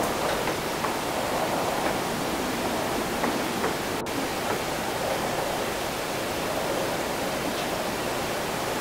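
After-rain city ambience: a steady rushing wash of wind and distant city noise, with a few faint light ticks and a split-second dropout about four seconds in.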